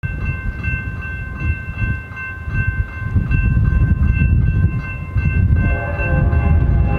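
Grade-crossing warning bell ringing in quick, even strokes under a low rumble. About five and a half seconds in, the approaching BNSF GE ES44C4 locomotive's air horn joins with a held chord.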